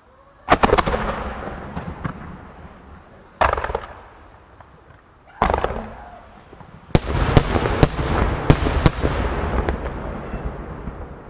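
Aerial firework shells bursting: three single booms a few seconds apart, each trailing off in a long rumble. About seven seconds in, a rapid volley of many sharp bursts overlaps and slowly fades.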